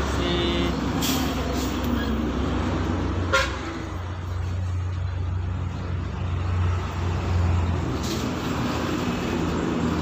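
Large diesel truck engine idling with a steady low hum. A single short sharp sound about three and a half seconds in is the loudest moment.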